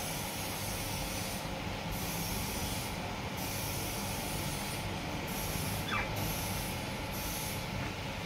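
Steady low hum with an even hiss, unchanging throughout, and a faint short chirp about six seconds in.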